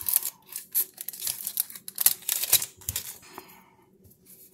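Foil wrapper of a baseball trading-card pack being torn open and crinkled: a quick run of sharp, dry crackles that stops a little before the end.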